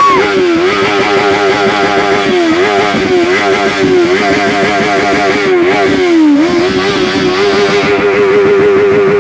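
Benelli TNT 600i's 600 cc inline-four engine held at high revs, with a few short dips in revs that climb straight back, the deepest about six seconds in.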